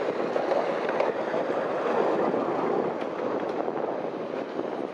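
Steady running noise of a small open-car park train moving along its track, heard from one of its passenger cars, mixed with wind on the microphone.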